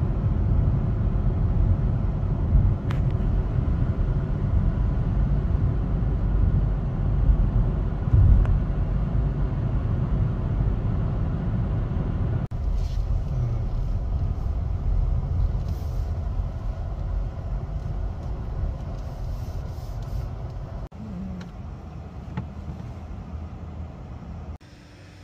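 Steady low road and engine rumble heard inside a moving car's cabin. It changes abruptly about halfway through and again later, grows quieter, and drops to a faint hum just before the end.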